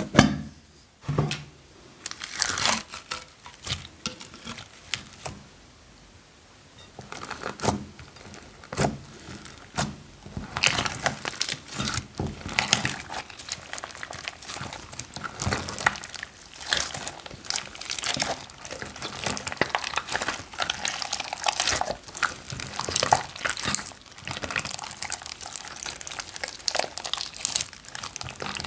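Plastic bags crinkling as they are handled and squeezed while slime is mixed in them, with some wet sounds. For the first several seconds there are only a few separate rustles and knocks; from about ten seconds in, the crinkling is dense and continuous.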